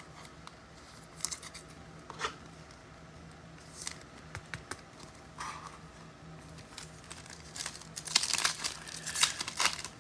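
A trading card pack wrapper being torn open and crinkled while the cards are handled: scattered short rustles and clicks, growing busier over the last two seconds.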